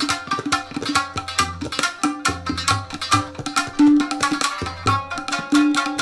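Shamisen and tabla playing together in a free improvisation: fast plucked shamisen notes over quick tabla strokes, with deep bass strokes from the larger drum now and then.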